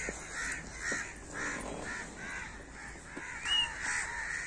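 Birds calling in the open fields: a quick, regular series of short calls, about two to three a second, then a short rising whistle near the end.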